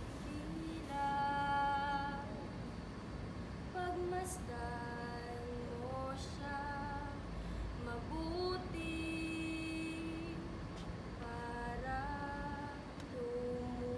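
A woman singing a slow melody in long held notes, sliding between some of them.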